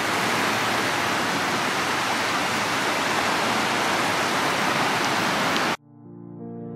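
A steady, even rushing noise with no rhythm or swell, cut off abruptly about six seconds in, after which soft piano-like music begins.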